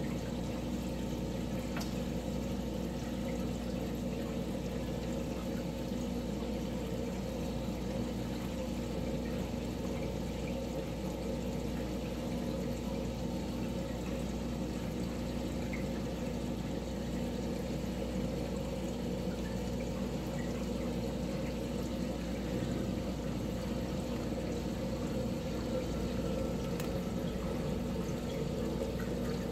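Aquarium water circulation: a steady pouring and trickling of water with a low, constant pump hum underneath.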